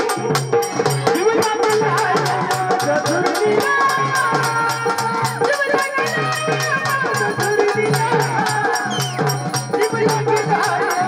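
Marathi folk music played at a fast, steady rhythm: low drum strokes under a continuous jingling rattle, with a melody line winding above.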